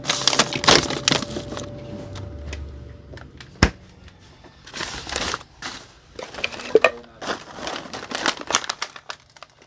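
Grocery bags and plastic packaging rustling and crinkling in irregular bursts as items are handled and unpacked, with scattered knocks of things being set down and one sharp knock about three and a half seconds in.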